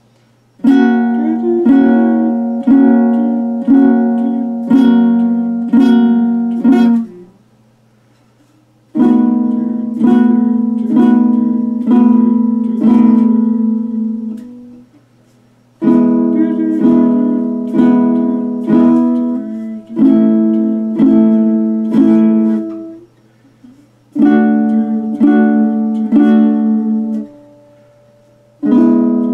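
Baritone ukulele, tuned D-G-B-E, strummed in chords at about one strum a second. The playing comes in four runs with short pauses between them, as a beginner works through the chord changes.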